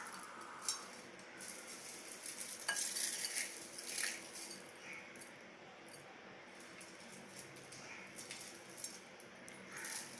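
Crisp fried snack pieces being broken up by hand and handled in a bowl: a dry crackling with scattered sharp clicks and clinks.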